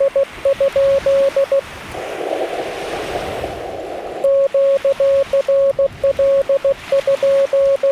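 Morse code from a Yaesu FT-891 ham radio transceiver: a steady mid-pitched tone keyed into dots and dashes in a repeating message. It breaks off for about two seconds of narrow receiver hiss in the middle, then the same keyed pattern resumes.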